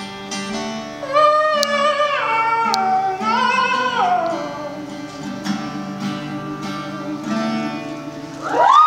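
Solo acoustic guitar playing a slow repeating figure under a high, wordless vocal line that holds notes and slides down in steps. Near the end the music stops and a rising whoop from the audience leads into cheering.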